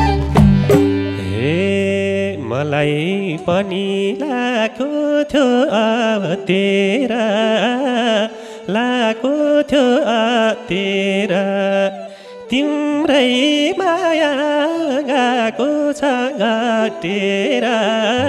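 Nepali lok dohori band playing live, with sarangi, harmonium, flute and madal, and a melody line that wavers in pitch. The bass drops out about three seconds in.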